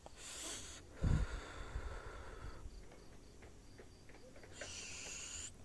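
Two short, hissy breaths close to the microphone, one at the start and one near the end, with a low thump about a second in.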